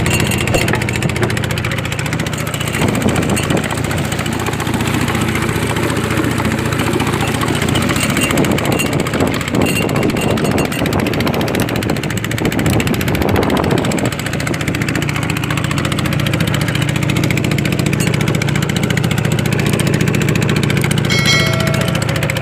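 A small fishing boat's engine running steadily at an even speed.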